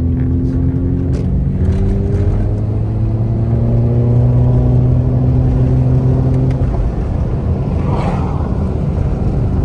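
A car's engine and road noise heard from inside the cabin as it pulls away along the road. The engine note climbs steadily for several seconds, then drops back about seven seconds in, and there is a brief rush of noise about a second later.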